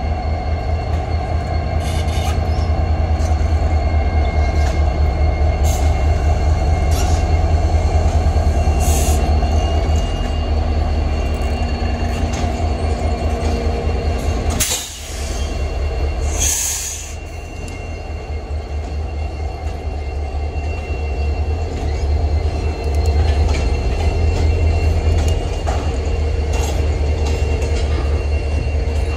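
Norfolk Southern diesel locomotives passing close by with a heavy, steady rumble, followed by double-stack container cars rolling past with scattered sharp clicks from the wheels on the rails. A brief burst of noise about halfway through.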